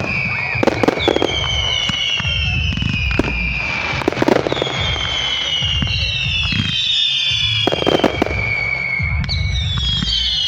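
Fireworks going off: several long, high whistles overlap and slowly fall in pitch, while sharp bangs and pops go off every second or two over a low rumble.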